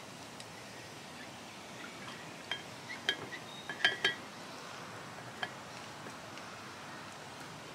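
A yellow hand-held lemon squeezer clinking and tapping against a glass mason jar as a lemon is pressed into it: a scatter of small clinks in the middle, the loudest pair about four seconds in.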